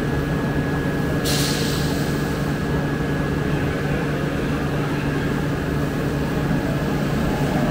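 Heavy machinery running steadily: a low hum with a thin high whine over it. About a second in, a hiss comes in suddenly and carries on.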